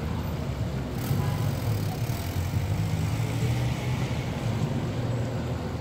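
Road traffic: a steady low engine rumble, with a passing vehicle's hiss swelling about a second in.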